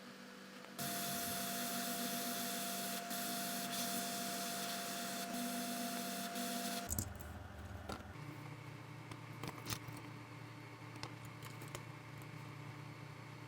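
An electric tool on a phone-repair bench runs with a steady hiss and a single steady tone, switching on abruptly about a second in and cutting off about seven seconds in. Afterwards a low hum continues with light clicks and taps of handling.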